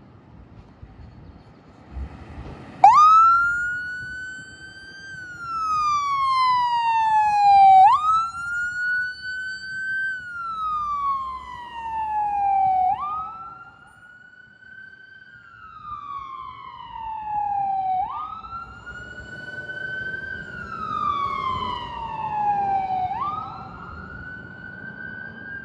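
Ambulance siren switched on about three seconds in, running in wail mode. Each cycle sweeps quickly up, holds briefly, then slides slowly down, repeating about every five seconds over a low vehicle rumble.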